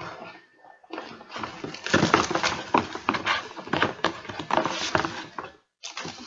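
Box contents and packaging being handled: irregular rustling with many small clicks and knocks, pausing briefly near the end.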